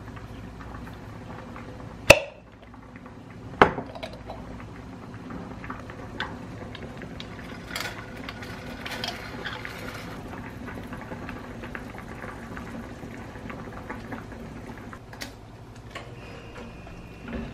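Kitchen cooking sounds: two sharp knocks as a jar of cream sauce is handled and opened, then thick sauce poured from the jar into a nonstick frying pan, and cooked spaghetti set into the pan with tongs near the end, over a steady low background noise.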